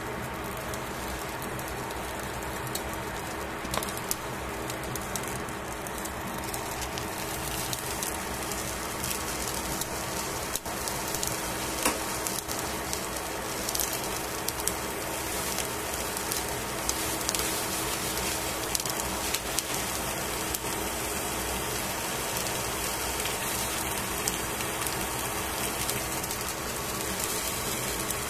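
Steady hiss with a faint steady hum under it, dotted with many small crackles and clicks from tongs and hands handling fish fillets on crinkly aluminium foil in a metal tray.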